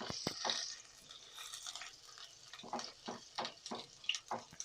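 Sliced onion frying in hot oil in a pan: a brief sizzle at the start, then scattered light scrapes and taps of a spoon stirring against the pan.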